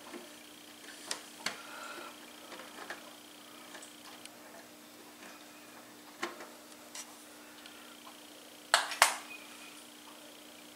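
Scattered small clicks and taps of small pliers and fingers working at a wall clock's hands, with two louder clicks in quick succession near the end, over a low steady hum.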